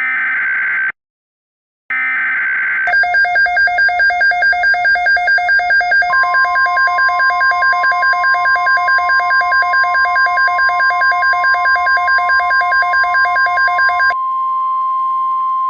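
Emergency Alert System-style alert tones: two short digital data bursts, each about a second long with a second's silence between. Then a loud pulsing electronic alert tone at about four beats a second, joined partway through by a steady single high tone that carries on alone near the end after the pulsing stops.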